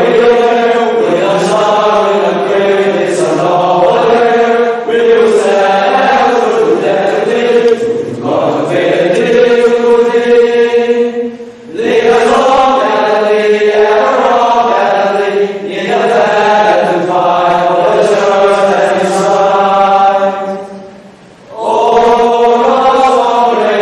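A male choir singing together in slow phrases of long held notes, pausing briefly about halfway and again near the end.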